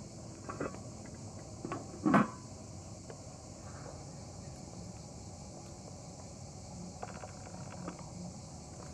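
A few sharp wooden knocks and clacks of small spice containers being picked up and set down on a wooden table and tray, the loudest about two seconds in, then a faint rattle later on.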